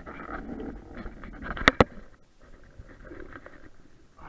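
Rustling and knocking as gear and waterproof clothing are handled in a small open boat, with two sharp knocks close together about a second and a half in.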